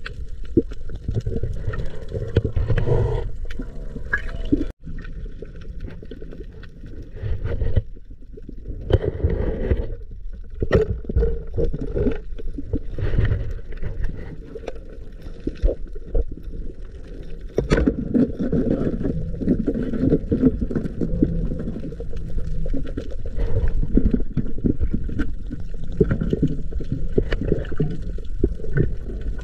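Muffled gurgling and sloshing of water, with scattered short clicks and knocks.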